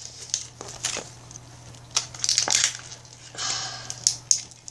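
Small plastic toy pieces being handled: a series of light clicks and knocks, with a short rustle in the middle.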